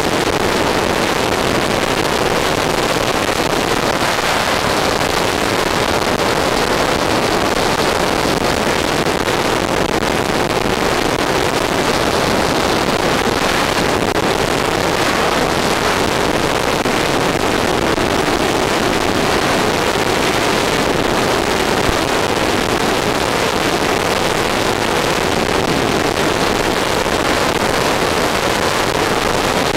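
Steady rushing noise on board an RC airplane in flight: wind over the airframe mixed with the motor and propeller, holding an even level with no clear change in engine pitch.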